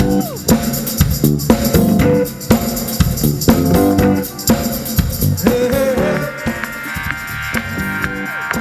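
Band music with a drum kit beat under pitched instruments; the drums drop back about six seconds in while sustained notes carry on.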